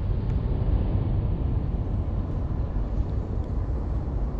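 Wind buffeting the camera microphone: a steady low rumble with no clear pitch.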